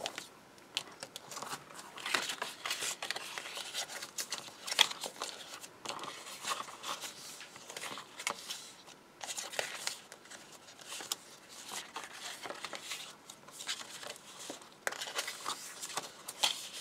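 White card being folded by hand along its scored lines and creased flat, the card rustling and crackling in irregular scrapes and taps.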